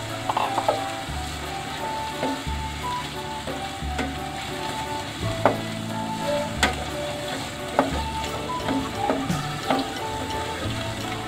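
Longganisa sausage pieces sizzling in hot sesame oil in a stainless steel pan, with a spatula stirring them and a few sharp taps and scrapes against the pan.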